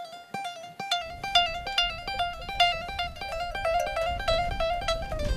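Bağlama (Turkish long-necked saz) playing a fast instrumental passage: quick plucked notes over a steadily repeated drone note. A low rumble comes in underneath about a second in.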